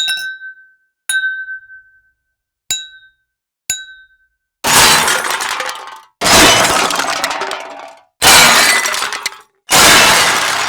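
Glass sound effects: four short glass clinks, each with a brief ringing tone, then four loud glass-breaking crashes, each shattering and fading over a second or so.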